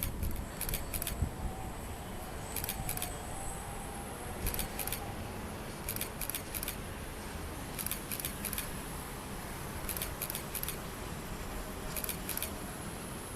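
Outdoor background rumble with short, very high-pitched chirps in twos and threes, repeating every one to two seconds.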